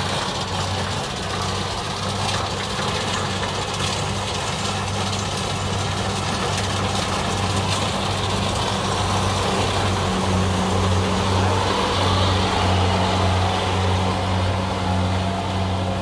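Kubota DC70 Plus rice combine harvester running steadily under load as it cuts and threshes: an even, low engine drone with mechanical clatter, growing a little louder about ten seconds in.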